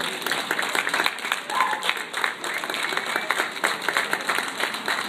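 Ringside crowd applauding, many hands clapping quickly and steadily.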